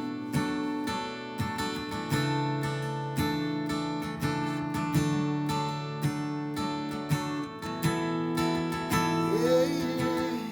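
Acoustic guitar strumming chords in a steady rhythm: an instrumental break in a worship song.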